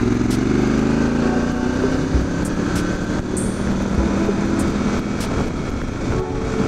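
Motorcycle engine running under way, its pitch falling over the first two seconds or so and then holding steady, with steady wind rush.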